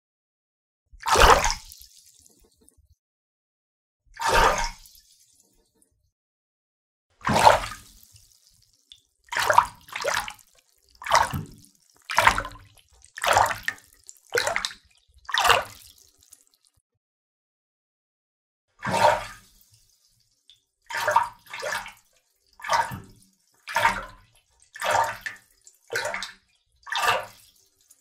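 A series of separate water splashes, each about half a second long. Three big single splashes come a few seconds apart, then a run of seven quicker splashes about one a second, and after a pause of a few seconds, a second run of eight.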